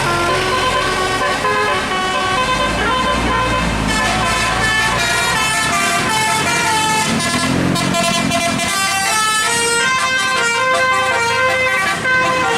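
Bus telolet horn, a multi-note electric musical air horn, playing a tune of quick stepped notes, with a bus engine rumbling underneath.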